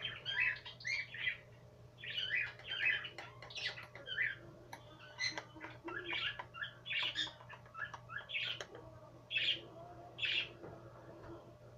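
A bird chirping and squawking in a run of short, high calls, several a second at times, with brief pauses between groups.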